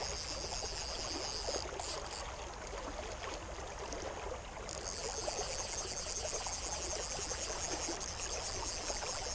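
Creek water rushing and splashing steadily. Over it runs a high buzzing band that drops out about a second and a half in and comes back around four and a half seconds in.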